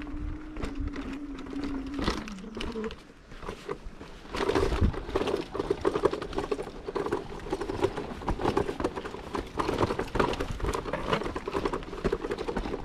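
Kick scooter rolling over a rough, stony track, its wheels and frame rattling and clattering unevenly, growing denser from about four seconds in. A single steady tone is heard over the first three seconds.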